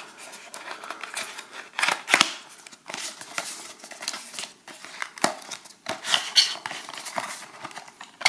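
A small cardboard battery box being handled and opened: a paper sleeve scraping as it slides off a white cardboard insert, with irregular rustles and light knocks, loudest about two seconds in.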